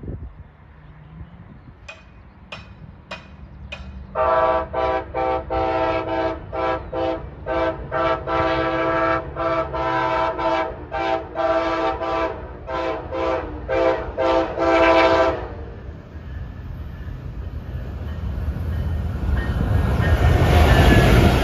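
Siemens Charger locomotive of an NCTD Coaster train sounding its multi-chime air horn in a hornshow: a rapid run of about twenty short chord blasts lasting some eleven seconds. After it the rumble of the approaching train grows steadily louder.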